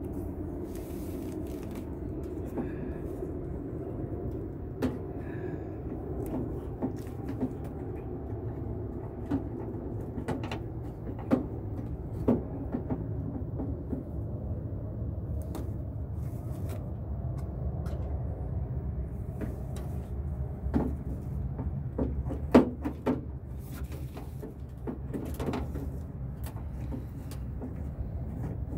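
Scattered clicks, taps and light knocks of a hand groping inside a 2002 Toyota Tacoma's door cavity for the outer door handle's linkage rod, over a steady low rumble. The sharpest knocks come in a cluster about three-quarters of the way through.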